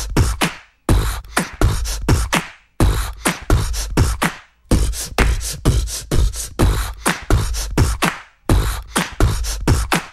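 Vocal beatboxing: a steady beat of mouth-made kick drum and snare sounds, about three or four hits a second, in phrases with short breaks between them.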